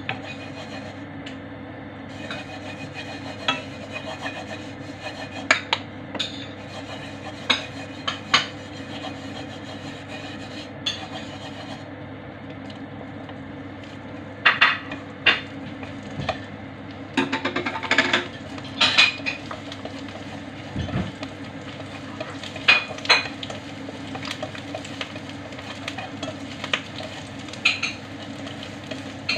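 Sliced garlic sizzling in oil in a wok, stirred with wooden chopsticks that click and scrape against the pan, the sharpest strokes in a cluster about halfway through, over a steady hum.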